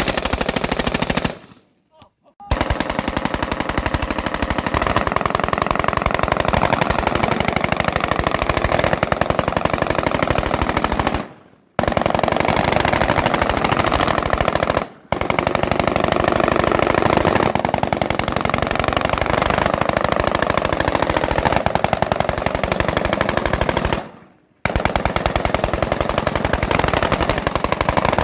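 Sustained rapid 5.56 mm rifle fire from M4 carbines, shots coming in quick succession with no let-up apart from four brief breaks.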